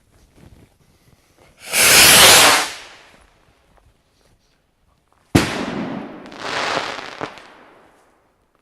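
Oversized bottle rocket firing: a loud rushing whoosh for about a second as it launches, then about three seconds later a sharp bang followed by a fading rush and a last crack.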